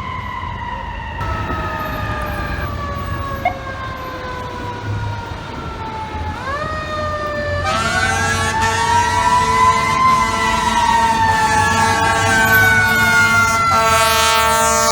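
Fire truck siren wailing. Its pitch falls slowly over the first six seconds, then climbs and swings up and down again, growing louder in the second half.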